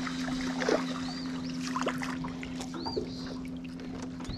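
Light water splashing as a small crappie is reeled up to the boat on a spinning rod, over a steady low hum. A bird gives a high chirp every second or two.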